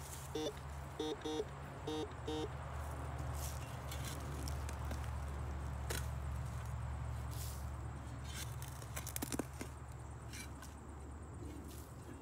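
Metal detector giving short, even-pitched beeps, mostly in pairs, over the first two seconds or so, signalling metal still in the hole under the root. After that come a few scattered clicks and scrapes.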